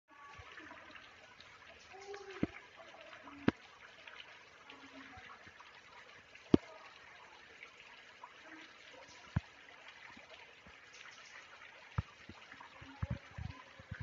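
Water trickling steadily in a rocky gorge, with a few sharp clicks at irregular intervals and faint snatches of distant voices.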